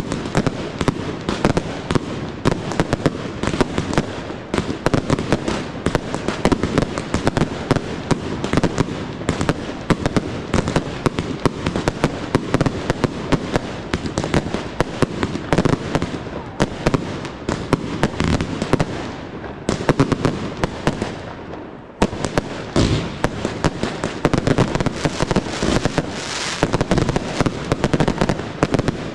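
Aerial fireworks display: a dense, rapid barrage of launch thumps, bursting shells and crackle, easing off briefly about three-quarters of the way through before picking up again.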